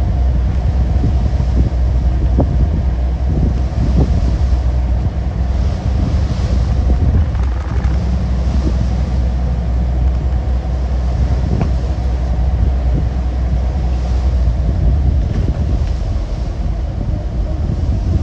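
Wind buffeting the microphone over the steady low drone of a fishing boat running at speed, with the rush of its wake and the waves swelling and easing every second or two. A few light knocks from the deck.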